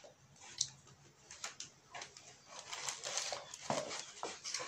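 Paper wrapper around a burger rustling, with scattered small clicks and taps as the food is handled.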